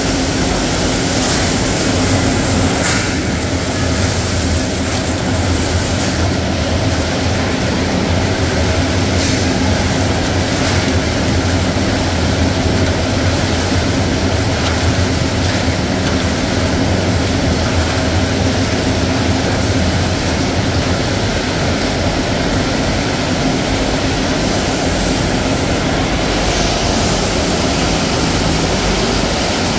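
Steady running noise of crab-meat processing machinery, a continuous mechanical drone with a low hum and a steady mid-pitched tone.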